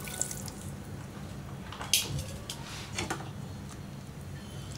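A spoon stirring liquid curry in a steel pot, knocking sharply against the pot about two seconds in and more lightly about a second later, over a low steady hum.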